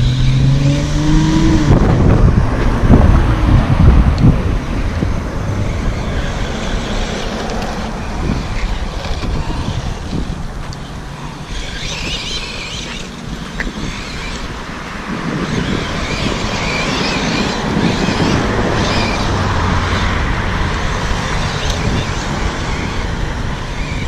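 Electric motor of a 1/12-scale 2WD remote-control truck whining as it speeds up and slows while the truck drives over loose dirt. A rising whine comes in the first couple of seconds.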